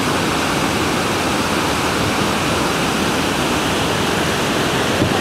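Steady, loud rushing of big whitewater rapids.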